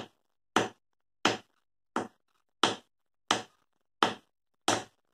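A twig striking the rim of a paint bucket used as a homemade drum: eight sharp, evenly spaced knocks, about three every two seconds.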